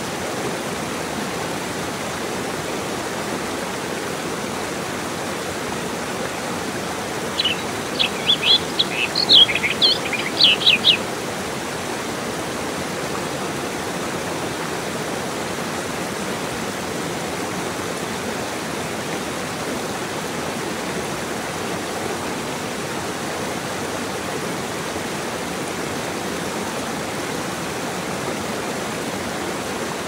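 Small forest stream rushing steadily over rocks in a low cascade. About seven seconds in, a bird sings a quick run of a dozen or so sharp high notes lasting about three seconds, louder than the water.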